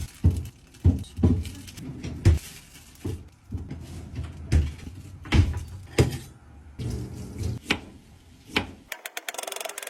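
Kitchen clatter: a dozen or so separate knocks and thuds from containers and utensils being handled. A quick run of clicks with a hiss comes near the end.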